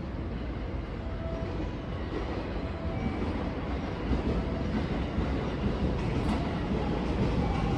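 Electric multiple-unit train, a 223-series 2000 coupled with a 225-series 100, running along the platform: a steady rumble of motors and wheels on rail that slowly grows louder.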